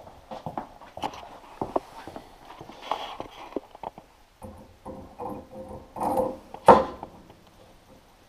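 Wheel hub being handled and worked onto a tractor's front spindle: a run of small knocks, scrapes and rag rustling, with a louder sharp clunk about two-thirds of the way through.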